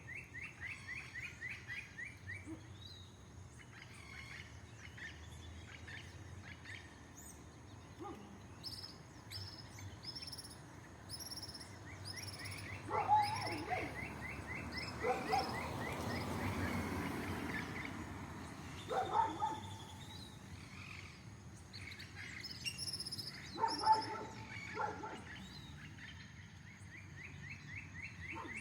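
Several birds calling at once: a rapid chattering trill of repeated chirps, series of high thin notes, and a few louder harsh calls. A low rushing noise swells and fades in the middle.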